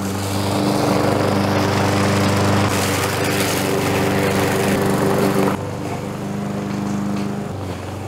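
Lawn mower engine running steadily as it cuts a trail through tall grass. The sound drops suddenly in level a little past halfway through.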